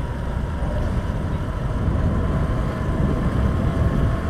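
Motorcycle riding at a steady speed: an even engine drone with a low rumble of wind and road noise and a faint steady whine, no sudden changes.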